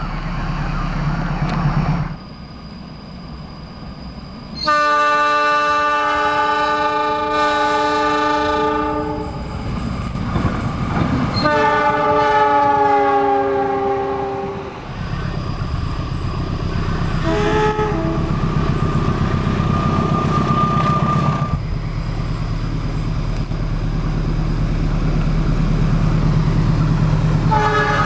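Locomotive horns sounding the Semboyan 35 signal over the low rumble of trains: a long, steady multi-tone blast lasting several seconds, a second blast a few seconds later that drops slightly in pitch, brief short toots, and another blast starting near the end.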